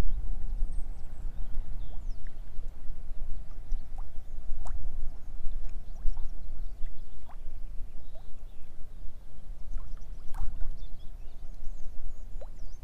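Wind buffeting the microphone in a steady low rumble, with choppy lake water lapping against a floating pontoon in scattered small plops and slaps.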